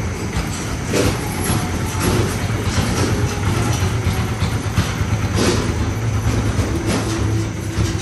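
Motor and stainless-steel drum of a 50 kg semi-automatic industrial washing machine running: a steady low hum and rumble, with occasional rattling knocks.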